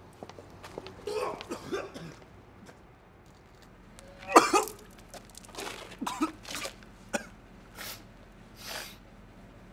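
A man coughing hard in a series of fits, the loudest about four and a half seconds in, with smaller coughs and throat-clearing sounds after it.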